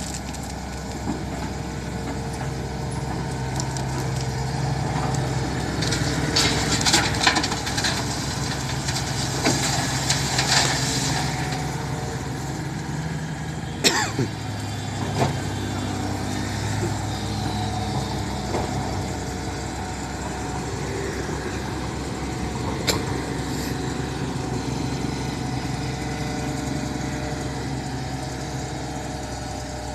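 Excavator engine running steadily, its pitch stepping up and down with hydraulic load. The bucket clatters and scrapes through gravel for several seconds near the start, with single sharp knocks about halfway through and again later.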